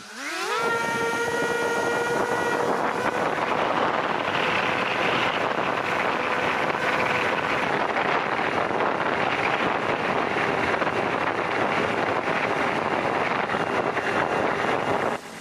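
Electric motor and propeller of a Penguin FPV model plane spooling up with a rising whine in the first half-second, then running steadily under heavy wind rush on the onboard microphone. Cuts off suddenly near the end.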